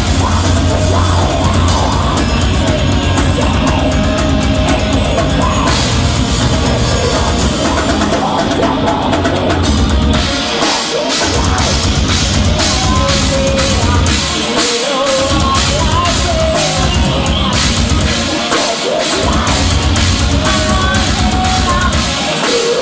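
Live heavy metal band playing: distorted electric guitars, drum kit and a female singer, loud and dense. The bass and kick drop out briefly about four times, in short breaks a few seconds apart.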